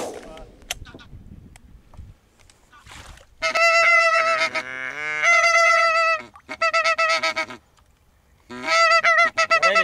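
A single shot right at the start, then loud goose honking: a series of drawn-out honks, one sliding down in pitch partway through, a short pause, and more honks near the end.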